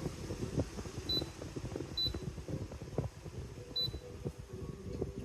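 Dreo tower fan's control panel beeping as its buttons are pressed: three short, high beeps, with soft handling knocks and a faint low steady hum underneath.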